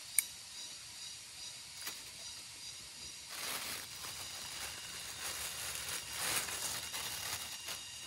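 Steady high-pitched rainforest insect chorus, with one sharp click just after the start and, from about three seconds in, several seconds of irregular rustling and crinkling.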